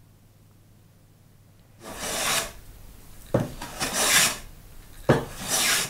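Hand plane taking three strokes along the edge of a narrow board, each cut lasting under a second; the second and third strokes begin with a sharp knock as the plane lands on the wood.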